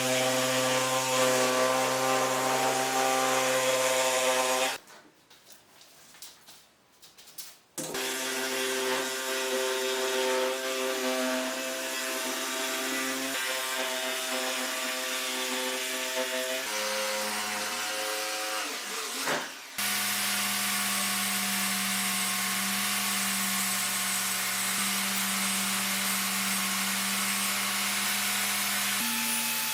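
Electric power tool motor running at a steady pitch while working wood, stopping for about three seconds and then running again, its pitch shifting a few times.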